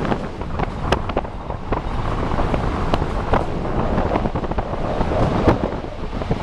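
Wind buffeting the microphone of a moving vehicle, over the rumble of tyres rolling on a gravel road, with frequent small clicks and pops from the stones.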